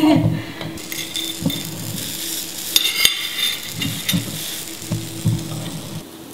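Wingko batter of glutinous rice and grated coconut sizzling in a hot multi-cup wingko pan, with a metal spoon clinking and scraping against a steel saucepan several times as batter is scooped out.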